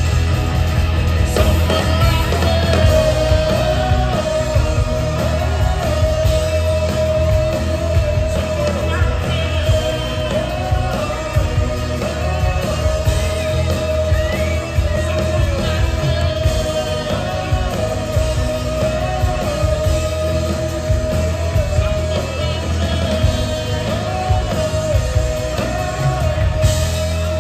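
Live band playing through a PA system: drums, electric and acoustic guitars, fiddle and keyboard, with singing. A long wavering melody line is held over a steady beat.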